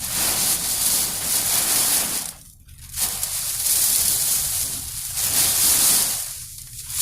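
Typhoon wind and wind-driven rain lashing a car, heard from inside the cabin: a loud rushing hiss that comes in gusts, dropping away briefly about two and a half seconds in and again near the end.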